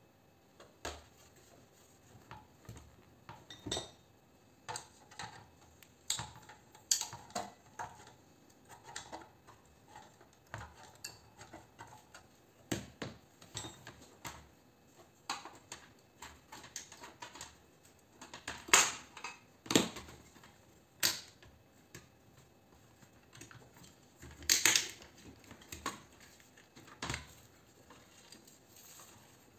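Irregular clicks, knocks and clatter of a round light fitting being handled and taken apart by hand on a workbench, its ballast and plastic base knocking and scraping. A few sharper knocks come past the middle and a brief rattling scrape near the end.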